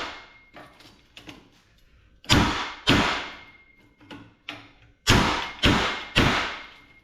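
Hammer blows on metal, trying to drive a steel pin out of an aluminum chair frame: five heavy ringing strikes, two near the middle and three in quick succession near the end, with lighter taps between.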